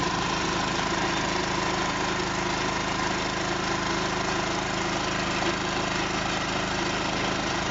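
Small engine of a soil-boring rig, the machine that hoists the heavy drop hammer, running steadily with no hammer blows heard.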